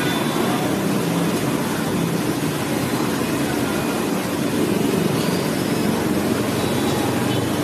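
Street traffic of motor scooters: a steady hum of small engines with general street noise as bikes ride past.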